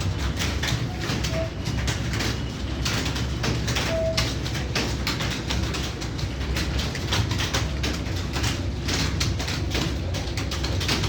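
Keyboard typing: rapid, irregular key clicks over a steady low hum.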